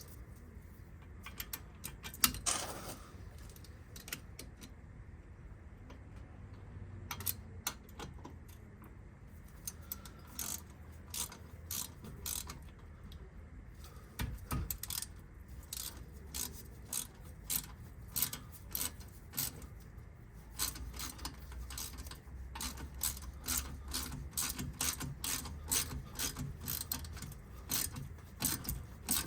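Repeated metallic clicks and knocks of a brake pad being worked and wiggled into place by hand. The clicks are sparse at first and come in quick runs later on, as the pad will not seat properly.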